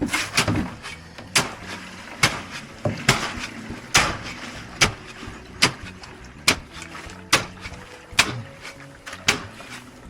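Sharp strikes repeating steadily, a little under one a second, from manual building work such as hammering.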